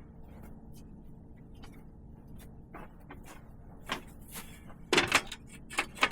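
A few sharp knocks and clatters over a quiet background. The loudest is a quick double knock about five seconds in, with two lighter knocks near the end.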